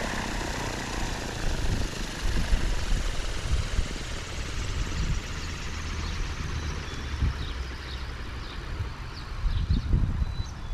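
XLPower 550 electric RC helicopter's rotor whine fading and falling in pitch, over a low rumble of wind on the microphone. Short bird chirps come in near the end.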